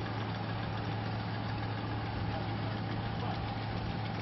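Fishing boat's engine idling with a steady low hum.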